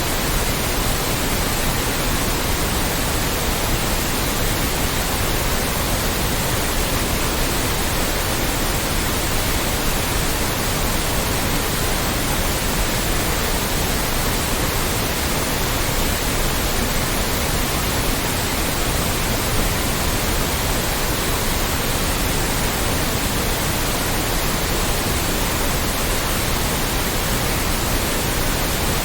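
Loud, steady synthetic noise with energy spread evenly from the lowest to the highest pitches, unchanging throughout.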